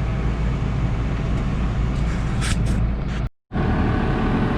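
Challenger tractor engine running steadily under load, heard from inside the cab, a low even drone. It drops out abruptly for a split second a little after three seconds in, then carries on the same.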